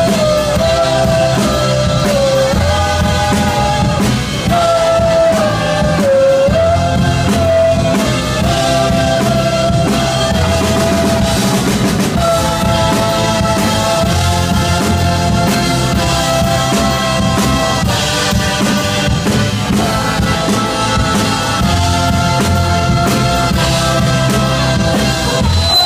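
Live Texas country band playing an instrumental break, a trumpet and accordion melody over acoustic guitar and a drum kit.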